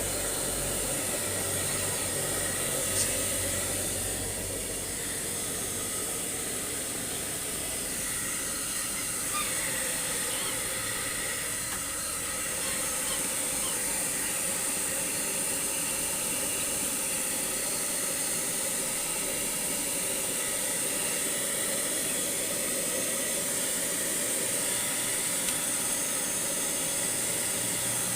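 Blow dryer running steadily, blowing a husky's wet coat dry after a bath; a hiss with a high whine, and a low hum that drops away a few seconds in.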